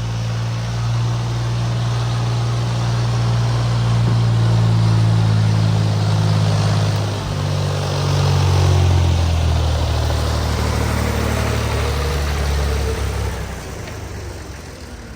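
Tractor engine running, with a pitch change about halfway through and a drop in level near the end.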